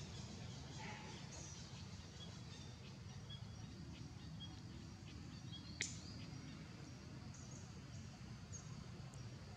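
Faint outdoor background: a steady low noise with scattered short bird chirps, and a single sharp click a little before the end.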